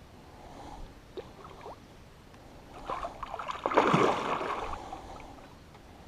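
Water splashing in a loud burst about three to four seconds in, after a few light knocks.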